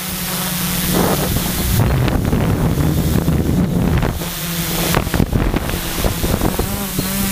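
Quadcopter motors and propellers heard from a camera on board, a steady hum that shifts as the craft turns, with wind buffeting the microphone.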